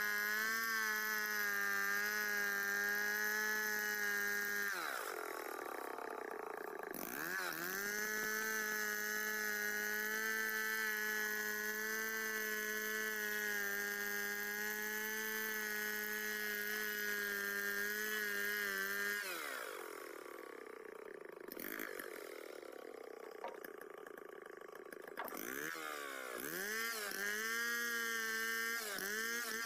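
Large two-stroke chainsaw ripping lengthwise through a santol log at steady full revs, freehand milling it into lumber. The revs drop about five seconds in and pick back up. Past the middle they fall off for several seconds, then come a few quick revs before it runs flat out again near the end.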